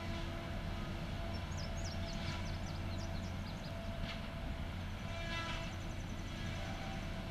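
Caterpillar 573C wheeled feller buncher running at work on a tree: a steady diesel drone with a constant whine on top.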